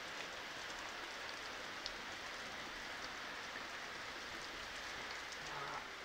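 Heavy rain falling steadily, with scattered sharp ticks of drops hitting a nearby surface.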